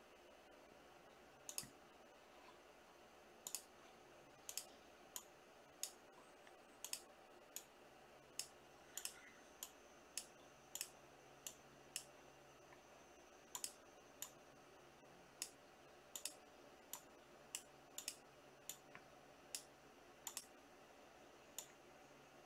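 Short, sharp clicks at uneven spacing, about one a second, over near silence.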